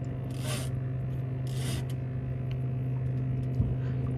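A steady low mechanical hum from the boat, with two short scraping sounds, about half a second and a second and a half in.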